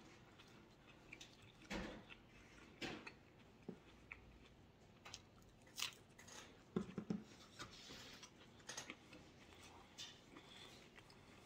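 Faint chewing of salad with the mouth closed, with scattered soft clicks and smacks, some from a fork against the salad bowl.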